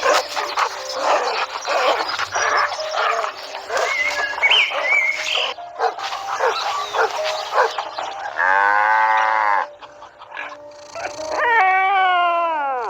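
Animal calls: a rapid run of short sharp calls for the first half, then two long pitched calls, the second falling in pitch, over steady background music.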